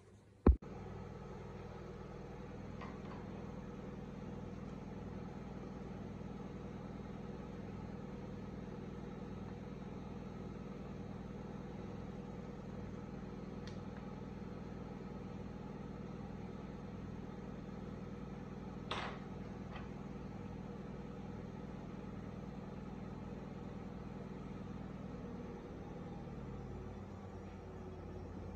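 A sharp click about half a second in, then a steady low mechanical hum with a faint regular pulse. A brief, sharper scratchy sound comes about two-thirds of the way through.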